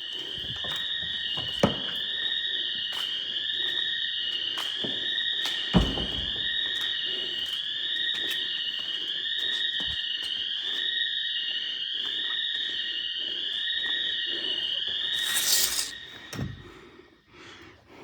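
Store intruder alarm sounding: a loud, high electronic siren repeating a rising sweep, a bit under one a second. It cuts off about fifteen seconds in, just after a brief loud rushing noise. A couple of sharp knocks come early on.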